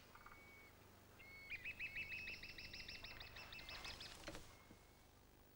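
A bird singing: a few faint whistled notes, then a fast trill of evenly repeated chirps, about eight a second, lasting nearly three seconds.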